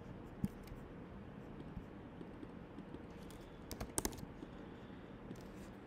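Faint, sparse keystrokes on a computer keyboard: a few scattered clicks with a short cluster about four seconds in.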